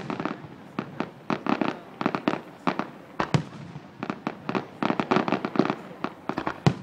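Fireworks display: a rapid string of sharp bangs and crackling reports from bursting shells, coming in quick clusters with short gaps, with a louder single bang a little past three seconds in and another near the end.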